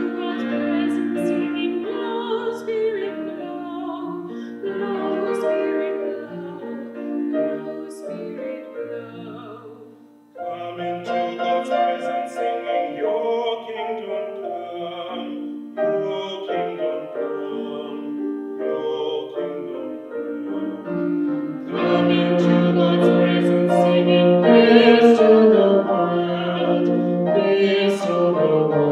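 Classical-style singing with piano accompaniment, likely an opening hymn or anthem. It drops away briefly about ten seconds in and grows louder in the last third.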